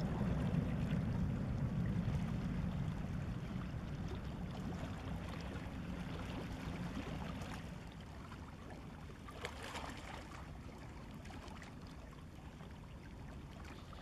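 Low steady rumble of ship engines across the water with faint water noise, fading gradually over the second half. A brief rush of noise comes about ten seconds in.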